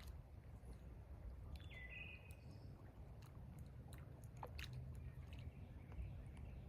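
Quiet lakeside ambience: a faint low rumble with a few soft clicks, and one short high call about two seconds in that falls and then holds.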